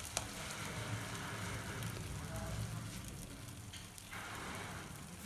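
Egg batter sizzling faintly in hot oil in a pan, with light crackling.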